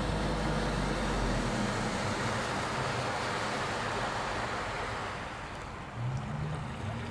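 A 50 hp Mercury two-stroke outboard driving a 16-foot skiff across the water, heard as a steady engine note under the rush of hull and wash noise. About five seconds in the rushing eases off and a lower engine note is left as the boat comes in.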